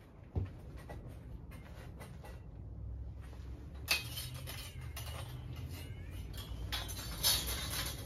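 Steel bandsaw blade clinking and rattling in gloved hands as it is coiled up, with sharp metallic clicks about half a second in, near four seconds and just past seven seconds, over a steady low rumble.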